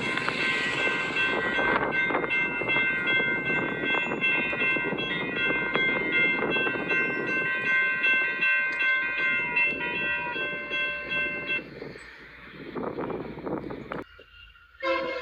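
Union Pacific freight train rolling to a stop. Its steel wheels and brakes give a high, many-toned metallic squeal over the rumble of the cars. The squeal cuts off about three-quarters of the way through as the train halts, the rumble dies away, and a horn begins right at the end.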